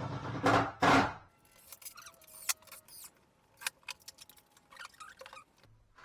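A brief louder noisy burst in the first second, then light, scattered metallic clicks and clinks of loose screws and fixings being picked through in a tray.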